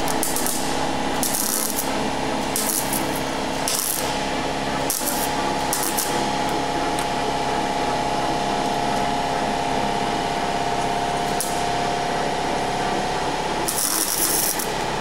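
Welding torch striking short bursts of arc on a car's sheet-steel underbody during rust repair, about seven bursts of crackling arc, the last and longest near the end, over a steady hum.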